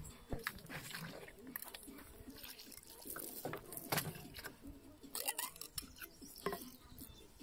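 Potatoes being handled and rinsed in metal bowls: irregular knocks, clinks and rustles, with water trickling near the end.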